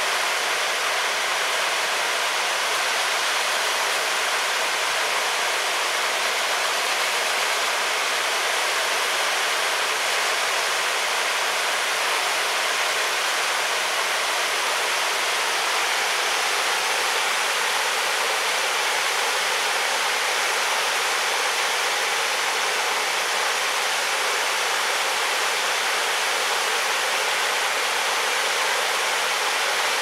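Steady rushing of running water, an even, unbroken sound with no distinct events.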